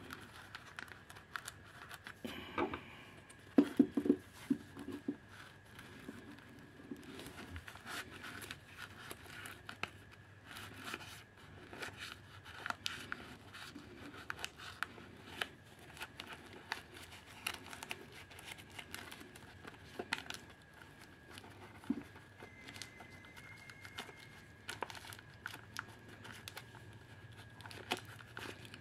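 Handling of a Brother inkjet printer's plastic ink absorber box: scattered clicks, knocks and scrapes of plastic as the housing is fitted together and its felt pads are pushed in with a screwdriver, with a few louder knocks about four seconds in.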